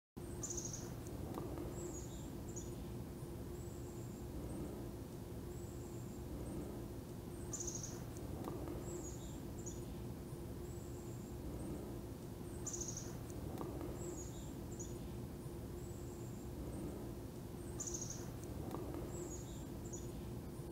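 A songbird singing the same short, high-pitched phrase about every five seconds, over a low steady background rumble and a faint hum.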